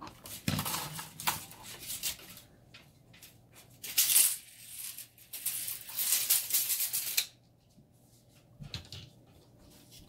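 Rustling and clattering handling noise as a braided USB cable and a tape measure are moved about, loudest about four seconds in and again near the six-second mark, stopping abruptly about seven seconds in.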